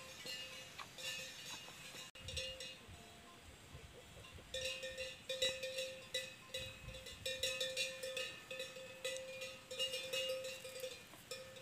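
Bell on a cow's neck clanking irregularly as the cow walks through the grass. It is faint at first and rings in quick repeated clanks from about four seconds in.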